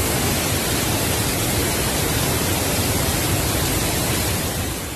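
Flood-swollen waterfall: a torrent of muddy water crashing down a rock face, making a steady, dense rushing noise that fades near the end.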